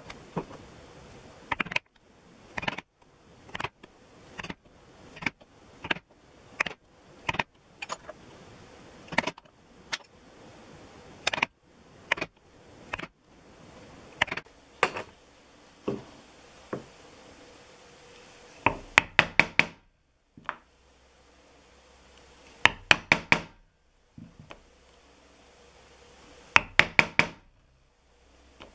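A mallet striking a multi-tined stitching chisel through the edge of a leather piece, punching stitch holes. Single knocks come about once a second, then three quick bursts of four or five strikes each near the end.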